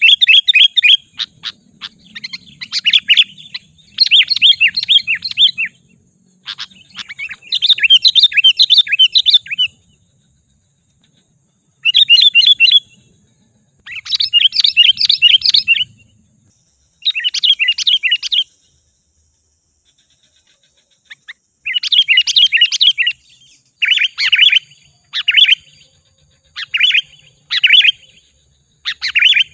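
Sooty-headed bulbul singing: loud phrases of fast chattering notes, each one to two seconds long with short pauses between them, turning to shorter phrases about once a second near the end.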